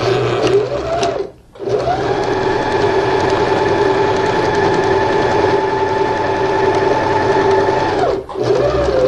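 Sewing machine stitching a straight seam. It makes a short run and stops briefly, then the motor speeds up and runs steadily for about six seconds before slowing to a stop. A further short burst of stitching follows near the end.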